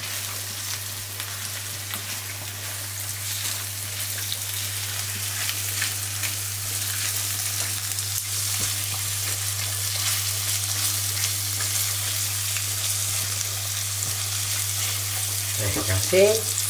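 Sliced mushrooms frying with onion and garlic in oil in a nonstick pan, sizzling steadily and growing a little louder, with light scrapes of a silicone spatula stirring them.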